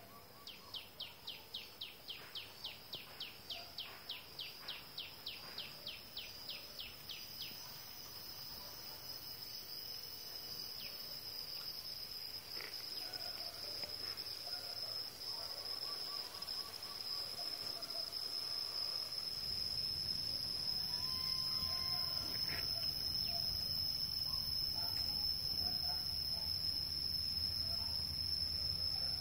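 Insects shrilling in a steady high drone, with a rapid run of about twenty short falling calls, about three a second, over the first seven seconds. A low rumble joins in during the second half.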